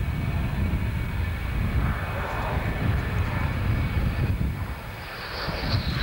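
A Dassault Mirage's turbojet on landing approach, heard as a steady low rumble. About five seconds in, a high whine rises as the jet passes close by.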